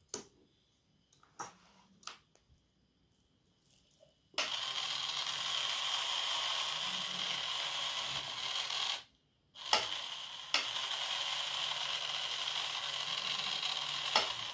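Small 45 rpm geared DC motor running and turning two plastic spur gears that drive a wooden flapping-wing linkage: a steady, loud mechanical whirring rattle. It starts a little over four seconds in, after a few clicks of parts being handled, cuts out for about half a second near the middle, and starts again with a click.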